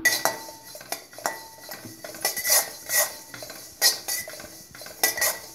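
Sesame seeds being stirred while dry-roasting in a stainless steel kadai: a utensil scrapes and clinks against the metal pan in irregular strokes, with a faint ringing of the pan.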